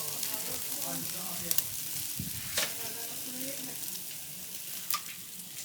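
Food frying with a steady sizzle, broken by a few sharp crackles.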